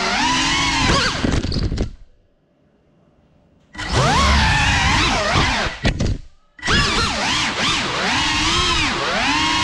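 FPV quadcopter's brushless motors and propellers whining, the pitch swinging up and down with the throttle. The sound drops almost to silence for about a second and a half two seconds in, then comes back and dips out again briefly about six and a half seconds in.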